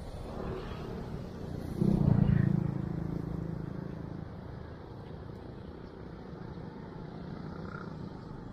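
A motor vehicle passing close by on the road, its engine loud about two seconds in and then fading away over a steady background hum.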